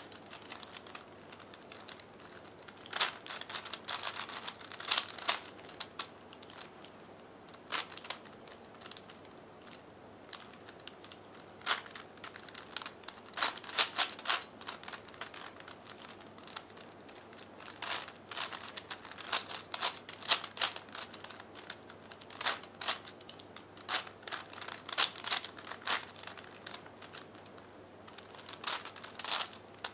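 5x5x5 V-Cube puzzle being turned by hand: its plastic layers click and clack in quick bursts of turns, with short pauses between bursts.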